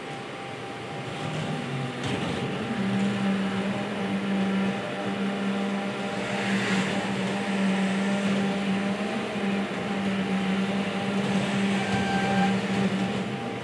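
Valkyrie humanoid robot's electric joint motors running with a steady whir, joined about three seconds in by a low steady hum that holds as the robot balances on one leg.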